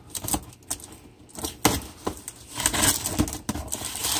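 Small cardboard box being handled and pulled open by hand: irregular rustling, scraping and tapping of the cardboard, with a few sharper knocks.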